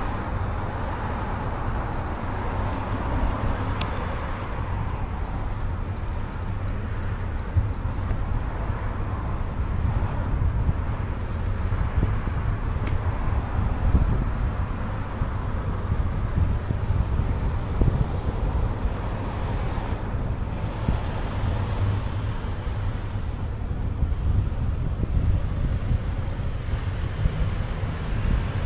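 Steady road traffic noise, with a constant low wind rumble on the microphone from moving along the street.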